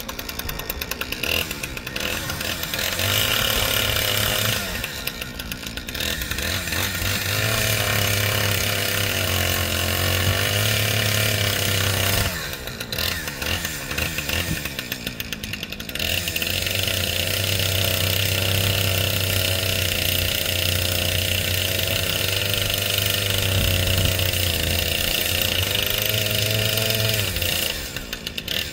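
Chainsaw engine held at high throttle in long stretches, dropping back to a choppy idle about four times between them.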